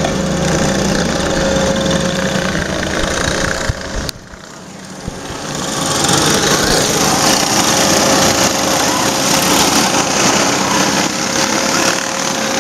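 Small petrol go-kart engines droning steadily. About four seconds in the sound drops sharply, then a steady rushing hiss rises and stays over the drone.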